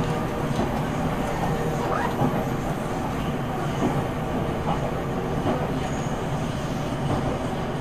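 Steady running noise of a JR Central 373 series electric express train travelling at speed, heard inside the passenger cabin: a constant rumble of wheels on rail with a few faint ticks.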